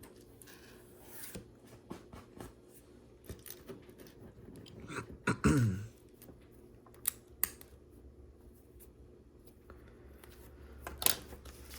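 Plastic LEGO bricks being handled and pressed together, with scattered sharp clicks and taps. About halfway through comes a louder brief squeak that drops in pitch.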